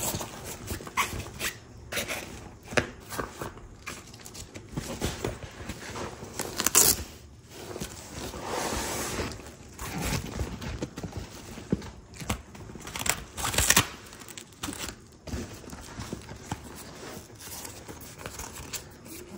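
A backpack and its packaging being handled: irregular rustling and crinkling with sharp knocks. The loudest knocks come about seven and thirteen seconds in, and a longer rustle runs for about two seconds near the middle.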